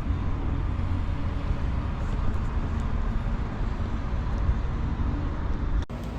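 Steady low rumble of outdoor background noise, with no single event standing out; it breaks off abruptly just before the end and continues a little quieter.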